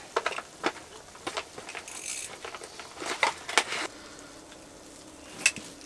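Scattered light clicks and knocks over the first few seconds, then a faint steady hum from about four seconds in, with one sharp click near the end.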